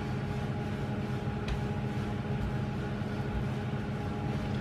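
Steady low background hum made of several unchanging tones, with a couple of faint soft taps.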